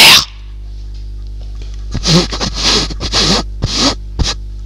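Close-up mouth and handling noise on a handheld microphone. A loud, distorted blast cuts off just after the start, then several short breathy scrapes against the microphone follow over a steady electrical hum.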